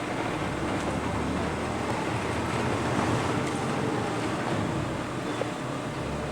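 CRAM-A-LOT HX-72-W baler and its 60-inch infeed conveyor running: a steady machinery noise with a low hum underneath.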